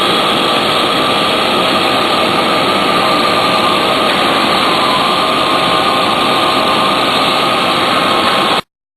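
Steady, loud mechanical noise, a hiss with a faint steady whine, from shop machinery running; it cuts off abruptly about eight and a half seconds in.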